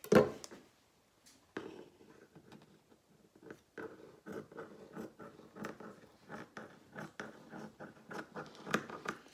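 A kitchen utensil knocks once loudly against a hard surface. Then comes a steady run of short scraping strokes, about three a second, as it works against a bowl or tray.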